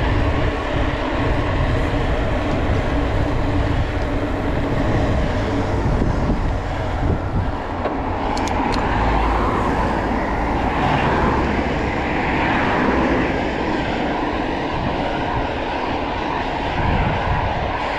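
Wind rushing over the microphone of a camera carried on a moving mountain bike, with steady tyre noise from the asphalt underneath. The rumble and rush stay constant throughout.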